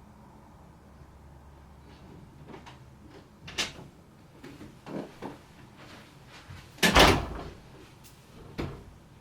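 A few sharp clicks and knocks of hard plastic as a laptop's case is worked open and its parts handled; the loudest knock comes about seven seconds in.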